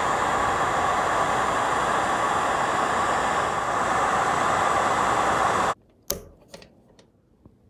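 Steady loud rushing noise, like a fan or blower, that cuts off abruptly near the end; then a single sharp click as a plastic Weather Pack connector is snapped together, with a few faint handling ticks after it.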